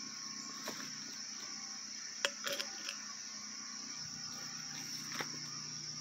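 Steady high-pitched chirring of insects over the constant low hum of a distant generator, broken by a few sharp clicks.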